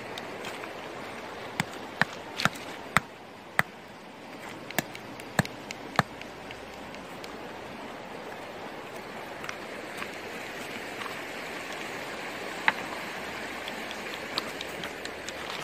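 Stones knocking together in a series of sharp clacks, about eight in the first six seconds and one more late on, over the steady rush of a shallow creek running over rocks.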